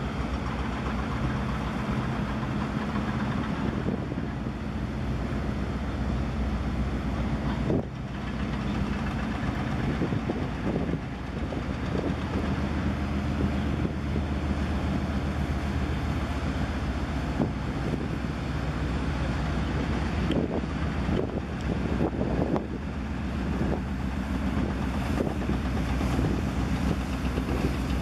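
Low, steady engine hum of a large container ship under way as it passes close by.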